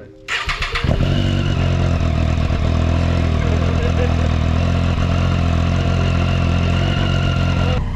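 Motorcycle engine starting and then idling steadily. It comes in abruptly just after the start and stops suddenly near the end.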